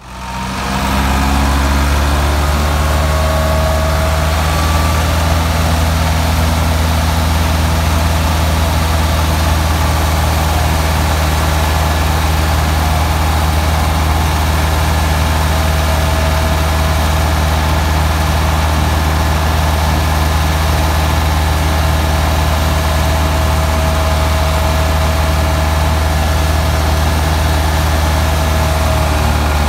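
Ford 3610 tractor's three-cylinder diesel engine running steadily, driving a wheat thresher through its PTO shaft. The thresher adds a dense, even rushing noise over the engine's low hum. The sound fades in at the start.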